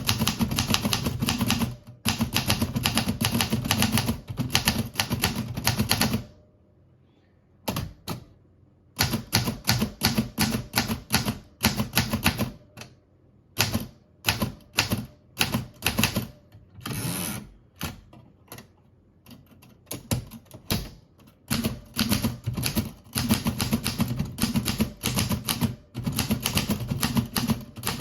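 Remington Rand De Luxe Model 5 manual typewriter being typed on: fast runs of key strikes, broken by a pause of about two seconds near a quarter of the way in and a slower, more uneven stretch of strokes through the middle.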